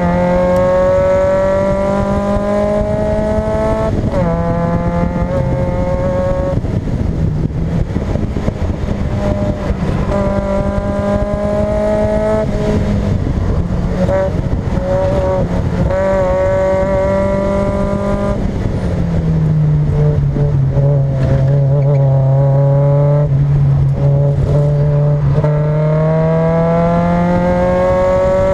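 Mazda Miata's engine being driven hard, its pitch climbing steadily and dropping back sharply at each shift or lift, several times over.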